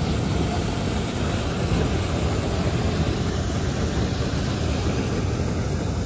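Hot air balloon's four-coil propane burner firing overhead: a steady rushing blast that holds without a break.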